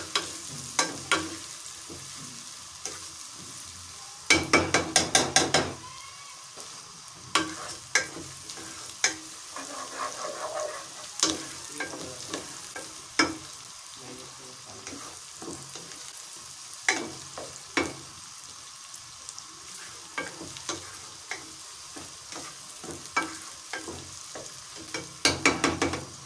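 Sliced onions frying in oil in a nonstick pot, with a steady sizzle, while a plastic ladle stirs them and knocks against the pot. A quick run of loud knocks comes about four seconds in and again near the end. The onions are being lightly browned.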